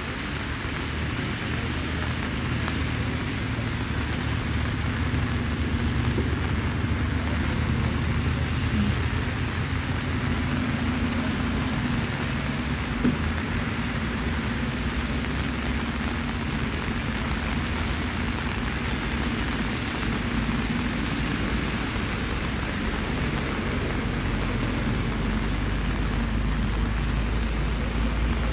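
Steady rain falling, an even hiss with a low, steady rumble underneath.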